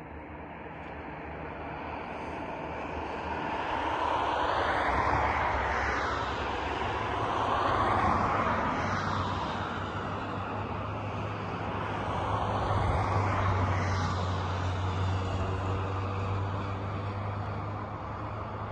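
DHC-2 Beaver floatplane's radial engine and propeller droning in flight, swelling and fading several times as the plane passes, loudest about five, eight and thirteen seconds in.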